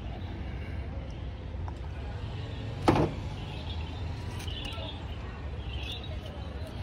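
Roadside street background: a steady low traffic rumble, broken by one sharp knock about three seconds in.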